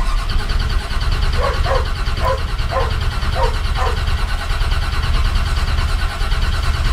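Starter motor cranking the Chevy K10's engine over continuously without it catching, with a few short chirps about a second and a half to four seconds in. The engine is flooded from too much pumping of the gas with the choke on.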